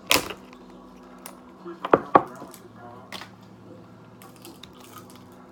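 Cooked lobster shell cracking and snapping as it is broken open: a few sharp cracks, the loudest right at the start, then two in quick succession about two seconds in and a lighter one a second later.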